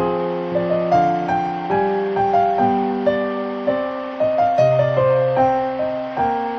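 Background piano music: a gentle melody of struck notes, about two a second, each fading away.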